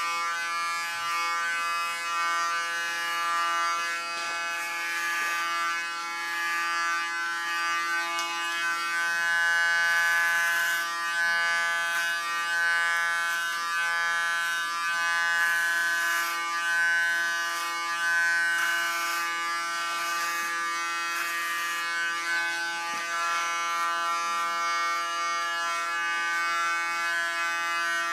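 Electric hair clipper running with a steady buzz as it cuts close-cropped hair, turning brighter and raspier now and then.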